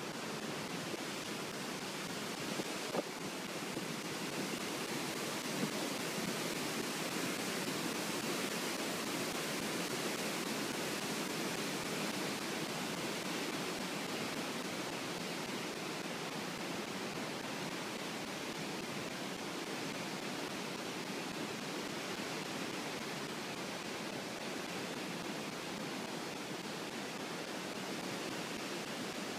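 Floodwater rushing steadily through the open gates of a river weir and churning into whitewater below, in a constant, even rush.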